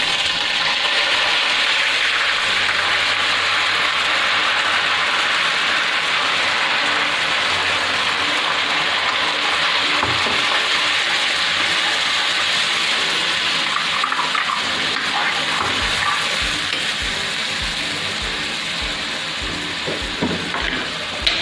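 Wet ground masala paste sizzling loudly as it hits hot oil in a metal kadai, a steady frying hiss that eases a little toward the end, with a few light knocks of a metal spoon stirring it near the end.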